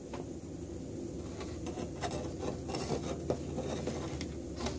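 Gas burner flame running steadily under a steel bluing plate, a low rumble, with scattered small clicks and scrapes as the burner is handled and adjusted, heating steel screws for bluing.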